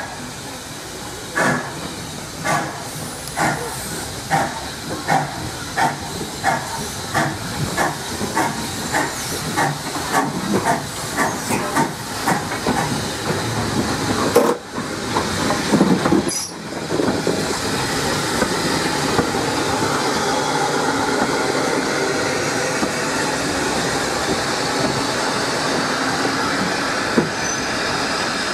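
SECR H class 0-4-4 tank engine No. 263 pulling away under steam. Its exhaust beats quicken from about one a second to two or three a second as it gathers speed. They then give way to a steady rolling rumble with steam hiss as the train passes close by.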